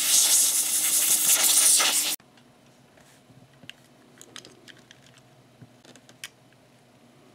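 Airbrush hissing loudly as it sprays a small plastic part; the hiss cuts off abruptly about two seconds in. After that come a few faint plastic clicks as a toy train motor chassis is handled.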